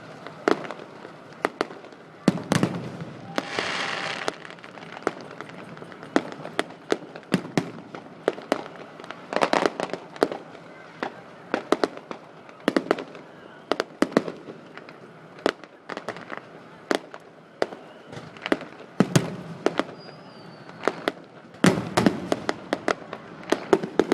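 Fireworks display: aerial shells bursting in frequent sharp bangs and cracks, with a short hissing crackle about three seconds in and a dense flurry of bangs near the end.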